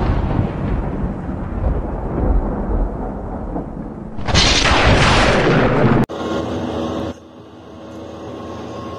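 Heavy wind buffeting the microphone in gusts, strongest at the start and again from about four to six seconds in. It then cuts abruptly to the steady hum of a self-propelled windrower's engine and cutting header, heard from inside its cab.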